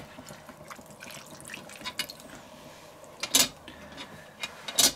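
Pineapple juice dripping and trickling from a tipped can onto the food in a cast-iron Dutch oven, with small handling ticks and two brief louder rustling sounds late on.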